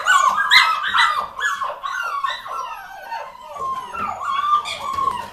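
A litter of Collie puppies whimpering and squealing, many high, falling calls overlapping one another, loudest in the first second or so.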